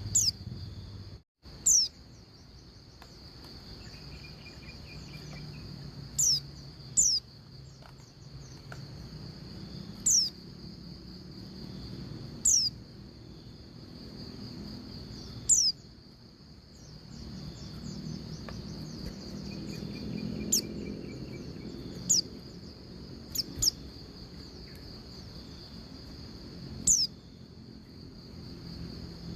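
Female white-eye (pleci) repeating a short, sharp call that sweeps downward in pitch, about a dozen times at irregular gaps of one to several seconds. A steady high-pitched drone runs underneath.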